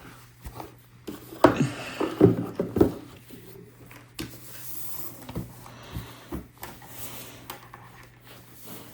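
Handling noise from an unboxing: the carry case and packaging are moved and set about, making scattered knocks and rubbing, loudest in a cluster of knocks between about one and a half and three seconds in, over a steady low hum.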